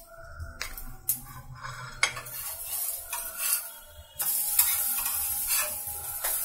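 A metal spatula scrapes and clicks against a hot griddle as rotis are lifted off, while the rotis sizzle on the griddle. The sizzling hiss grows louder about four seconds in.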